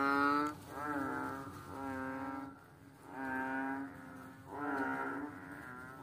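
Toad calling: a series of drawn-out croaks, each just under a second long and steady in pitch, about one a second.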